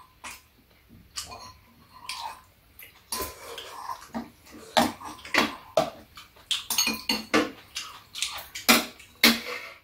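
Metal spoon and chopsticks clinking and scraping against bowls and a metal serving tray during a meal. The clinks are sparse at first and come thick and loud from about three seconds in.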